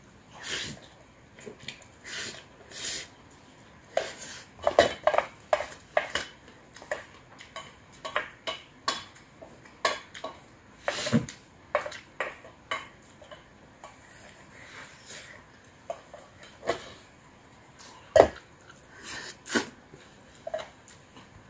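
A spoon scraping and knocking against a stainless steel mixing bowl as rice is scooped up, with irregular clinks and one sharp knock near the end, between close-miked chewing.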